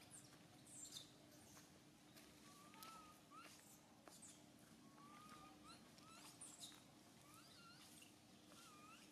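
Faint string of short, high-pitched squeaky animal chirps, several ending in a quick upward sweep, over a steady low hum.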